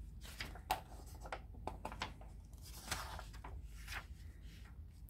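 Paper pages of a Heavy Metal magazine being turned by hand: soft rustling with a string of short, sharp paper flicks and crinkles.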